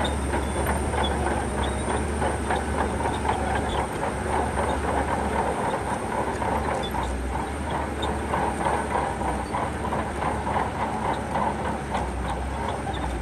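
Shantui crawler bulldozer working, its diesel engine giving a steady low drone under the continuous rattle and clatter of its steel tracks.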